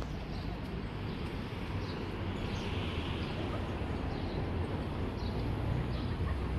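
Outdoor ambience: a steady low rumble and hiss, with faint short bird chirps about once a second.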